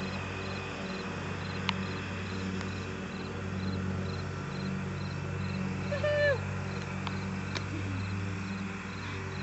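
Insects chirping steadily, about two chirps a second, over a low steady hum. About six seconds in comes a short pitched call that drops at the end, the loudest sound here.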